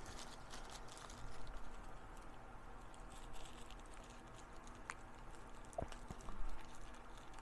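Faint handling noises from unboxing: light rustling with scattered small clicks and taps as packaging and small accessories are handled.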